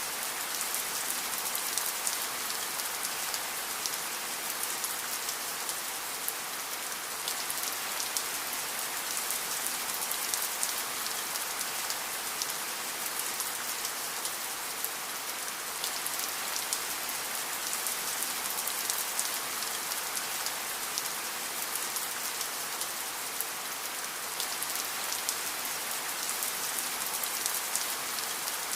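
Steady rain falling on a surface, a dense hiss thick with fine crackling drop ticks, unchanging in level.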